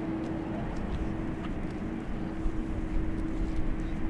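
Jet airliner engines rumbling low, with one steady droning tone over the rumble that grows slightly louder in the second half.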